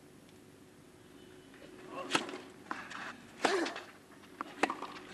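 Tennis racquets striking the ball on a clay court: quiet at first, then a serve about two seconds in, followed by two more sharp hits a little over a second apart as the rally gets going, the middle one the loudest.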